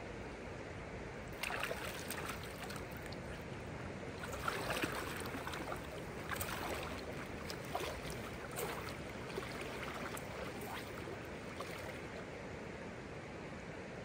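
A person in waders sloshing through shallow river water, with irregular splashes over the steady rush of the stream. The splashes start about a second and a half in and fade near the end as the wader moves away.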